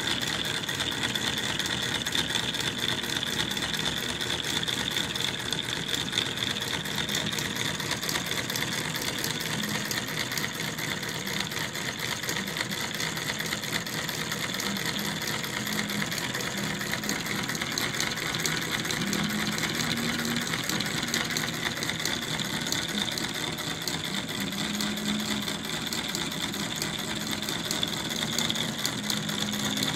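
Flame-heated model Stirling engine running steadily: a fast, even mechanical clatter from its linkages and spinning flywheel, with a steady high whirr. The engine runs again, its fault repaired.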